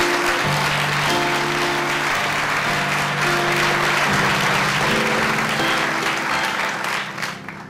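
Audience applauding over live music played on a stage keyboard, held notes changing every second or two. Both fade away near the end.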